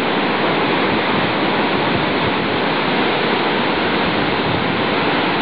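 Ocean surf breaking, an even, steady rush of water noise with no distinct crashes standing out.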